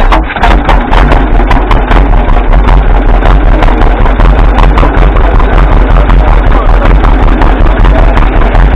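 1937 John Deere Model A's two-cylinder engine running loud and close, with a steady, even popping beat.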